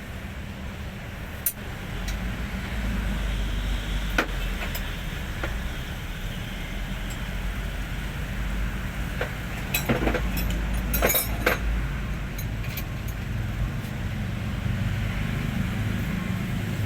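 Hino 500 truck diesel engine running with a steady low rumble that swells slightly about two seconds in, with a few sharp metallic clinks, most of them bunched together around the middle.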